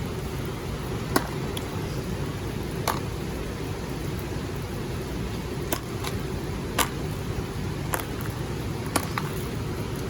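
Steady rain noise with a scattering of sharp clicks, about six in ten seconds, from stones and crystals being picked out of a bag of gem mix and set down.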